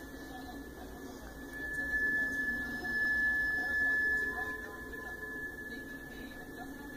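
Freight car wheels squealing against the rail as a long freight train rolls past, one steady high-pitched squeal over the low rumble of the cars. The squeal grows louder about a second and a half in and eases off after about four and a half seconds.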